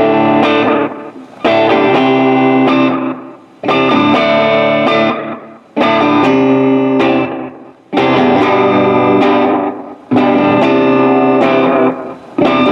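Electric guitar played through a Memphis Echo ME-8 8-track tape delay: a chord struck about every two seconds and left to ring out.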